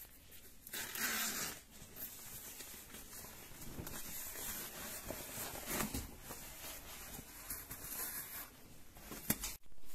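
Zipper on a small inner pocket of a fabric shopping-trolley bag being pulled open, with the bag's fabric rustling as hands work the pocket. The loudest rasp comes about a second in, and there is a sharp click near the end.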